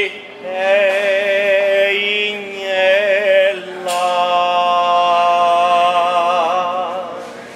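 A man singing long held notes in three phrases. The last note is held about three seconds and wavers with vibrato near its end.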